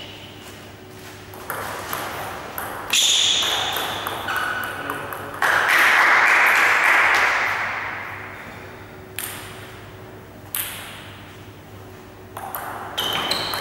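Table tennis ball being struck by paddles and bouncing on the table: separate sharp pings, some ringing briefly, echoing in a large hall. About midway there is a loud rushing noise lasting a couple of seconds.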